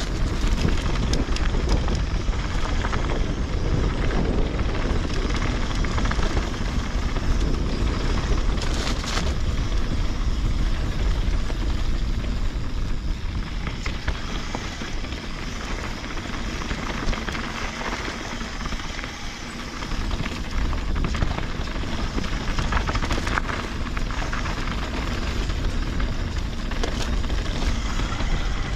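Mountain bike riding down a dirt singletrack: wind buffeting the action camera's microphone as a steady low rumble, with knobby tyres rolling over dirt and the bike rattling in scattered small clicks.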